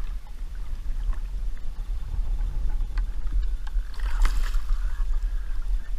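Steady low wind rumble on the microphone with water washing around the kayaks, then a splash about four seconds in as a hooked barracuda thrashes at the surface.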